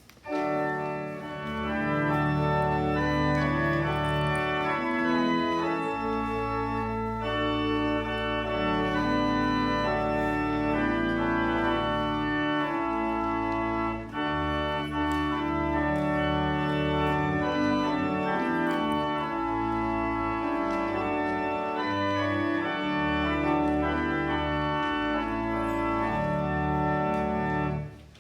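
Church organ playing a hymn in full held chords over deep, sustained bass notes. The playing breaks off briefly near the end, then starts again.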